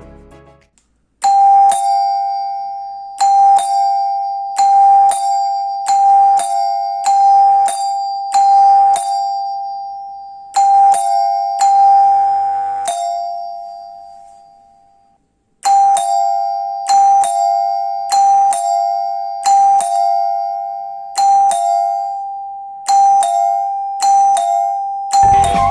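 Electronic doorbell chime playing a two-note ding-dong again and again, about a dozen times in quick succession, each ringing out before the next, with a pause of a few seconds midway.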